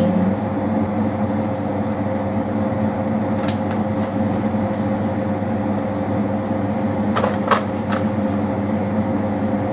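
Wall-mounted split-type air conditioner running with a steady hum carrying several even tones. A few brief handling noises come about three and a half and seven to eight seconds in.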